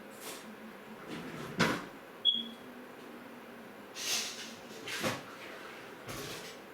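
A few separate knocks and handling bumps, like a cupboard or door being worked, with a short high ping about two seconds in.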